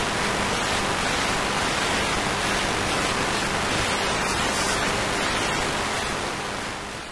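Steady static hiss, an even rushing noise with no tones or rhythm in it, fading away near the end.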